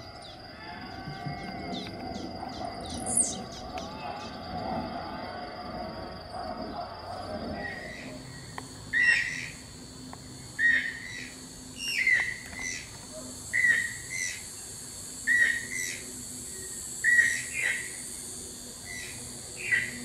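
A steady high insect buzz with a few faint chirps. After about eight seconds a channel-billed toucan starts calling: loud calls repeated roughly every one and a half seconds.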